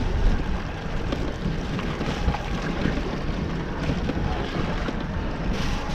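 Wind buffeting the microphone on a small boat in choppy water: a steady, rumbling noise with gusts, and a brief brighter rush near the end.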